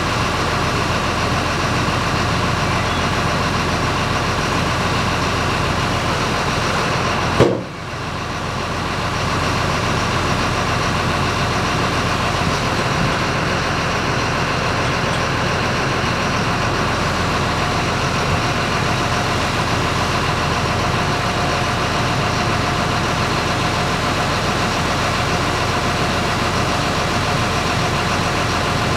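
An engine running steadily at a low, even speed. A single sharp knock comes about seven seconds in, after which the sound dips and then comes back.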